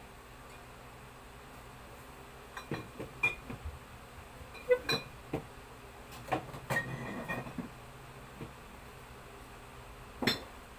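Glass soft-drink bottles clinking and knocking as they are set one by one into a refrigerator's door shelf: a scatter of sharp clinks, some briefly ringing, over a few seconds, and one more near the end.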